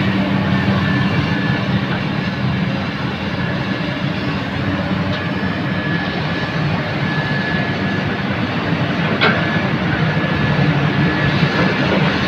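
Komatsu PC200 excavator's diesel engine running steadily under work, with a thin steady whine above it and a single sharp knock about nine seconds in.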